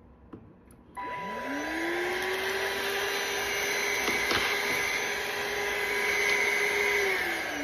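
A small electric motor switches on about a second in, spins up quickly to a steady whine with a rushing hiss, runs for about six seconds, then is switched off and winds down with a falling pitch near the end.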